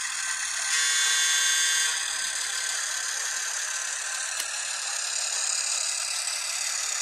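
N-scale Atlas Alco S-2 diesel switchers' DCC sound decoders playing diesel engine sound through their tiny speakers as the locomotives run, with a thin, high-pitched steady running sound. A short, louder steady tone sounds about a second in and lasts about a second.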